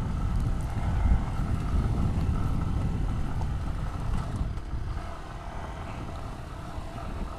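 Motorcycle running at low speed over a rough, wet concrete road, its engine under a steady low rumble, getting quieter about five seconds in as the bike slows down.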